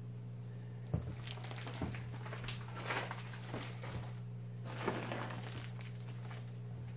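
Plastic fish-shipping bags and the foil-lined insulated box liner being handled, giving a run of soft, irregular crinkles and rustles over a steady low hum.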